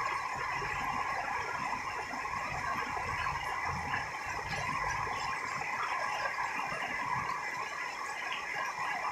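Rain falling steadily, with a few steady high tones running through it.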